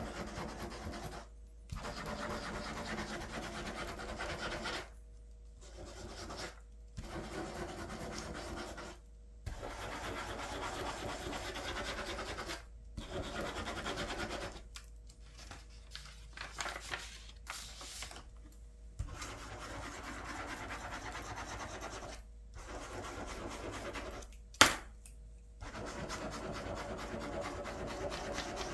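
Plastic ballpoint pen scratching across paper on a clipboard as loops are scribbled, in stretches of one to four seconds with short pauses where the pen lifts. A single sharp click comes about three-quarters of the way through.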